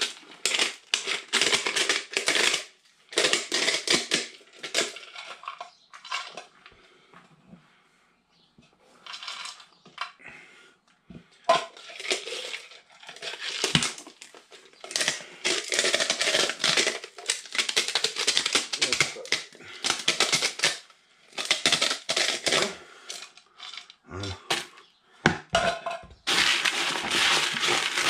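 Hard fishing hookbait pellets being crushed in a small hand-held grinder, in repeated grating bursts of about a second with short pauses. Near the end a hand stirs the dry pellets in a plastic bucket, a longer rustling rattle.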